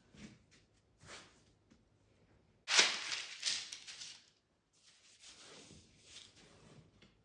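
A sheet of baking parchment rustling and crinkling as it is laid out, loudest about three seconds in, then softer paper rustles as a ball of bread dough is handled and set onto it.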